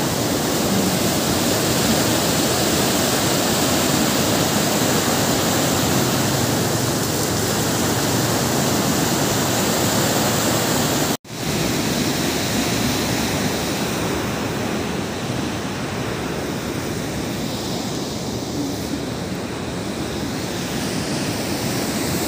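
A fast-flowing mountain river swollen by rainy-season rain, rushing water with a steady roar. It cuts off for an instant about eleven seconds in and resumes slightly quieter.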